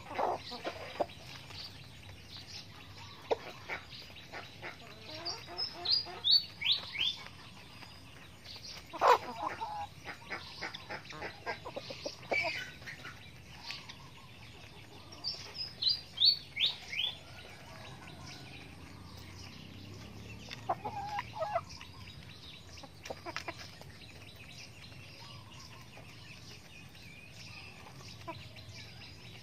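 Chickens clucking softly while pecking at grain, with a few louder clucks. Twice, a small bird sings a quick run of high chirps that fall in pitch.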